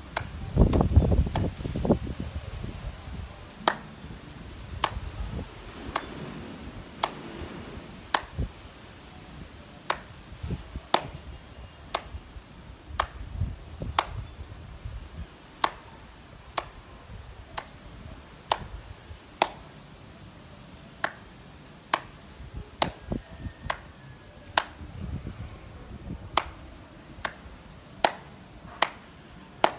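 Light, sharp hand claps, about one a second, coming a little faster near the end. A low rumble in the first few seconds.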